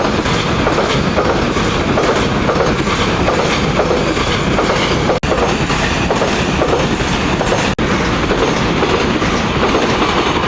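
A freight train of automobile carrier wagons rolling past, the wheels clattering steadily over the rail joints. The sound cuts out for an instant twice.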